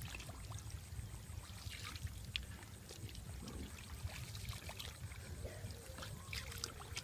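Hands groping through shallow, thick muddy water, with small scattered splashes and squelches over a steady low rumble.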